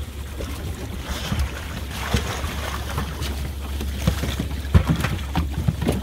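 Wind rumbling steadily on the microphone, with water splashing and slapping irregularly against a small aluminum boat's hull as a swimmer holds onto the side.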